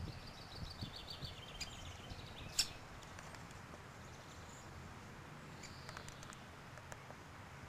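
Bird calling outdoors: a fast run of short, high notes that steps down in pitch over the first two seconds, then a single sharp tick about two and a half seconds in, followed by faint scattered ticks.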